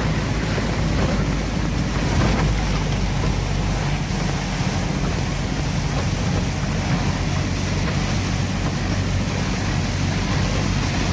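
Heavy storm rain and wind on a truck cab, a steady rushing noise, with the truck's engine running low underneath.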